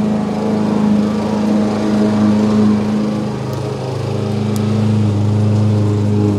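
Petrol lawn mower engine running steadily as grass is cut, a steady even hum whose tone shifts slightly about four seconds in.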